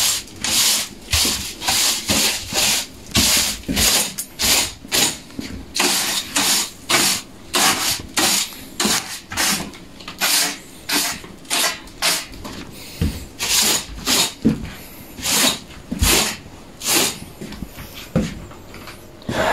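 A cleaning brush scraping over a surface in steady, rhythmic strokes, about two a second.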